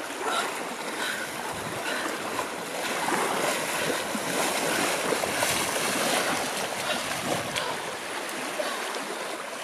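Steady rush of moving water with a few faint, brief high chirps on top.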